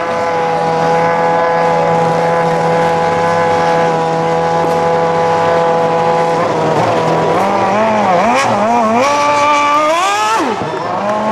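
Formula 1 car's V8 engine held at a steady note, then revved up and down several times, climbing highest before dropping sharply near the end.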